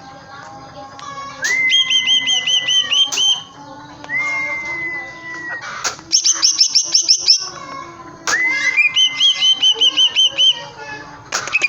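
Green leafbird (cucak ijo) singing loudly in repeated phrases, each a held whistle followed by a rapid run of chattering notes, about four phrases in all, with a few sharp knocks between them.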